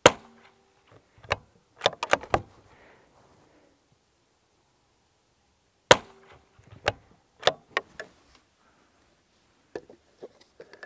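Two shots about six seconds apart from a CZ 457 Carbon .22 rimfire bolt-action rifle firing Sellier & Bellot subsonic hollow-point rounds. Each sharp report is followed a second or so later by a quick run of metallic clicks as the bolt is worked to eject and chamber the next round. A few lighter clicks come near the end.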